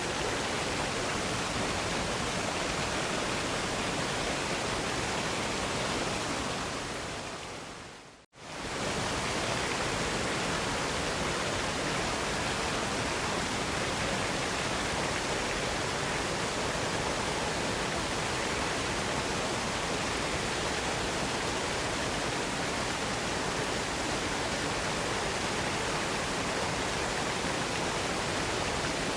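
Steady rushing of a waterfall, an even hiss of falling water. About six seconds in it fades away to a brief silence just past eight seconds, then comes straight back at full level.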